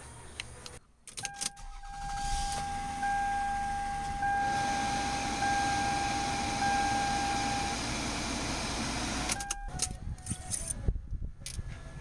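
Toyota Camry/Solara 3.0 L V6 engine started after an oil change and left idling to circulate the new oil, with a steady high tone sounding over it, then switched off near the end.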